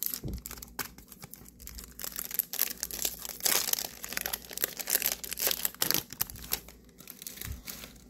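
Foil Yu-Gi-Oh booster pack wrapper crinkling and tearing as it is opened by hand: a dense run of crackles that thins out near the end.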